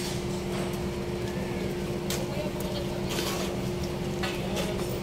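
A steady engine hum holding one pitch, with several short sharp hissing or clicking noises over it.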